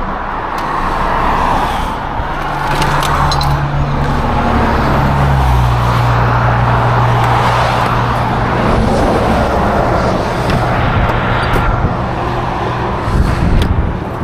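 Car running on the road: a steady engine hum with even road noise, the engine note dropping a step about five seconds in.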